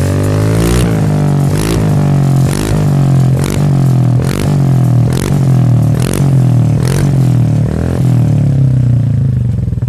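Honda ADV150's 149cc single-cylinder four-stroke engine through an IXIL M9 aftermarket exhaust, revved in quick throttle blips about once a second, nine or ten times, then dropping back to idle near the end.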